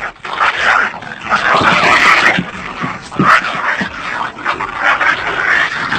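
Dogs fighting, loud and continuous, in a rough run of close noisy bursts.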